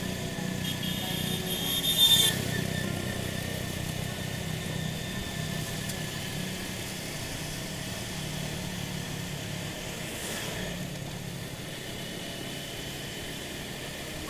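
Motorcycle engine running steadily on the ride, a continuous low hum with road and wind noise. A brief high-pitched sound stands out about a second or two in.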